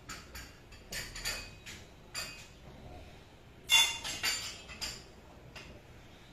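China cup, saucer and plate with cutlery clinking as they are set down on a serving tray: a run of light taps and clinks, with one louder ringing clink about four seconds in.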